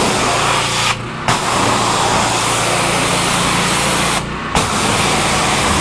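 Gas pressure washer running steadily while water hisses hard from the spray wand. The spray cuts out briefly twice, about a second in and again about four seconds in, as the trigger is released, and the engine keeps running underneath.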